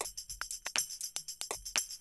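Background music with fast, jingling percussion strokes in a steady rhythm over a low beat.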